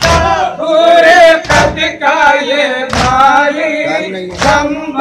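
Men chanting a noha lament over microphones. Loud chest-beating (matam) strikes fall in time with it, about every one and a half seconds, four in all.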